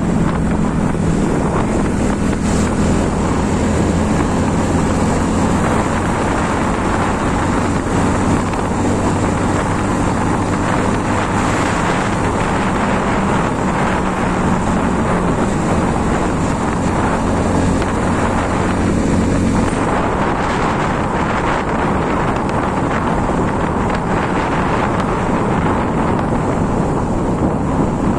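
Motorcycle riding at a steady speed: the engine's even hum under heavy wind rush on the microphone. About two-thirds of the way through, the engine's steady note drops away, leaving mostly wind noise.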